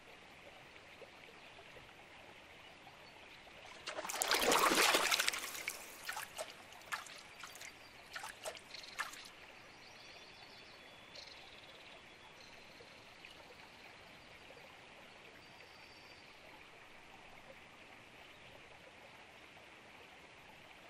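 A frog splashing down into shallow water about four seconds in, followed by a scatter of drips and droplets falling back onto the surface, then a faint steady background.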